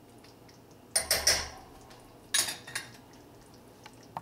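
A metal spoon scraping and clinking against a stainless steel saucepan while stirring a stew, in two short bouts, about a second in and just after two seconds.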